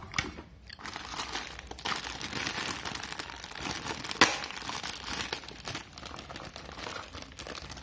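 Clear plastic packaging bag crinkling continuously as it is handled and turned over, with one sharp click about four seconds in.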